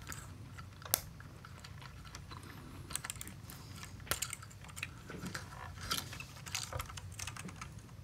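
Small scattered clicks and taps of metal parts as a guitar's Gibson-style toggle selector switch is handled and a thin pin punch is worked into it, with one sharp click about a second in.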